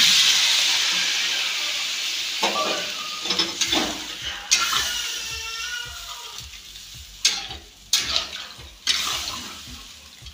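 Water poured into a hot kadhai of fried masala, drumsticks and potatoes hisses and sizzles loudly, the hiss slowly dying away. From a couple of seconds in, a metal spatula scrapes and knocks against the pan now and then as the curry is stirred.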